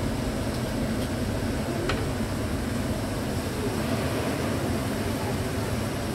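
Steady low rumble of cooking on a gas hob, with two pans of curry and lamb on the lit burners, and one light click about two seconds in.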